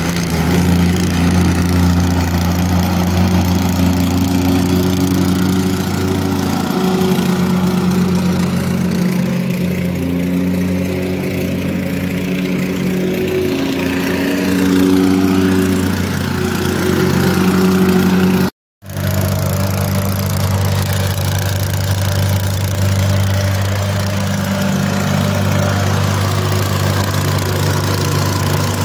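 Plate compactor's small single-cylinder petrol engine running steadily under load as the plate vibrates over sand-and-gravel backfill. The sound cuts out for a split second about two-thirds of the way through.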